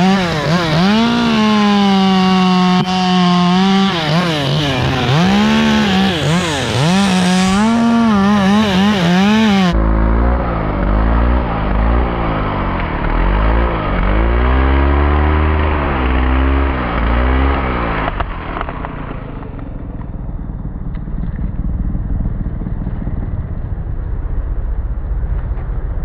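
Chainsaw engine revving up and down repeatedly while cutting. About ten seconds in the sound abruptly turns duller and deeper, and from about eighteen seconds it runs quieter and steadier.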